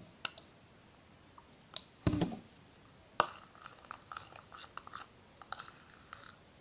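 A spoon stirring sticky glitter-glue slime in a small pot: short wet, squishy smacks and clicks, with a heavier knock about two seconds in and a quicker run of smacks in the second half.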